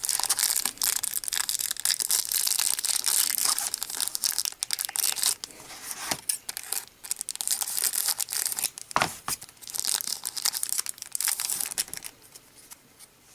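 Trading card pack wrapper being torn open and crinkled by hand, a dense run of crackling and tearing with sharp snaps, dying down about twelve seconds in.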